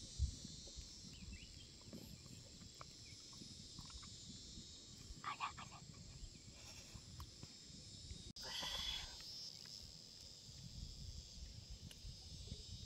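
Quiet outdoor ambience: a steady high-pitched hiss over a low rumble, with two brief faint sounds, one about five seconds in and one shortly after an abrupt break near eight seconds.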